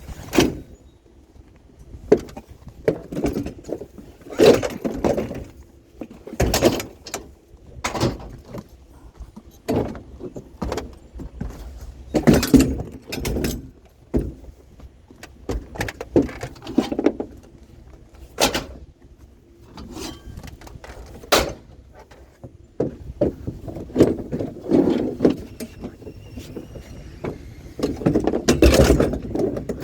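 A run of irregular clunks, knocks and rattles, as of hard objects being handled, set down and moved about, some with a brief ring.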